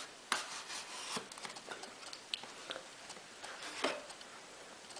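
Headphone box packaging being handled as an inner piece is slid out: a faint rubbing and scraping, with a few light clicks.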